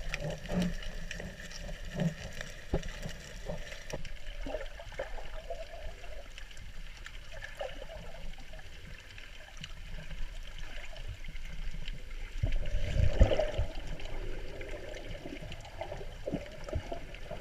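Muffled underwater sound from an action camera held below the surface while snorkeling: irregular water swishes and gurgles from swimming movement, over a faint steady high whine. About thirteen seconds in, a louder low surge of water movement.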